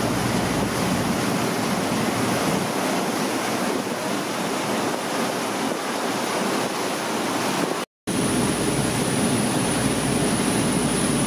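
Water rushing and hissing along a fast-moving passenger boat's hull in its wake, mixed with wind on the microphone, steady and loud. It cuts out briefly about eight seconds in; after that a lower hum from the boat and a faint steady high whistle are also heard.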